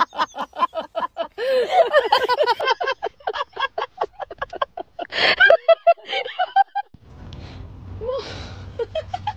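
A person laughing hard in quick, even pulses, about five a second. It cuts off about seven seconds in, leaving a low steady hum.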